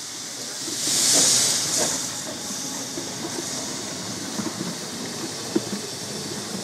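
Ffestiniog Railway Double Fairlie 0-4-4-0T steam tank locomotive moving slowly off. A loud burst of steam hiss comes about a second in, then steady hissing continues with scattered light knocks and squeaks from the wheels and motion.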